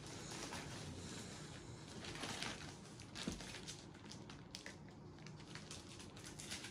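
Packaging being torn and crinkled open by hand: faint, irregular rustling and ripping, a little louder a couple of seconds in.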